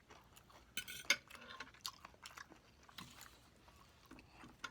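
A person chewing and biting food close to the microphone, with scattered small clicks and mouth smacks, the loudest about a second in.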